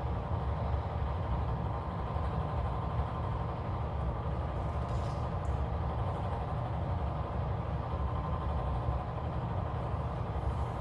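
Steady low hum of background machinery or room noise, unchanging throughout.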